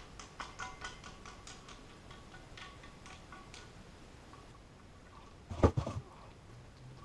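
Small light clicks of a nut and washer being turned by hand onto a brass tank-to-bowl bolt on a porcelain toilet tank. About five and a half seconds in comes a louder cluster of three or four hard knocks of hardware against the tank.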